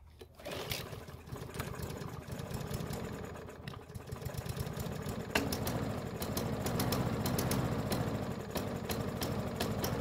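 Yard Machines push mower's small engine starting and running slow and uneven, then picking up speed with a wavering pitch about five seconds in. This is a poor startup that the owner puts down to a carburettor still partly blocked, where there could still be some jelly.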